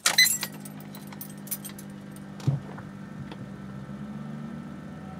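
Ignition keys jangling and clicking as the key is turned to on in a 6.0 Powerstroke diesel truck, followed by a steady low hum from the truck with the ignition on and the engine not yet cranked. There is one light knock about halfway through.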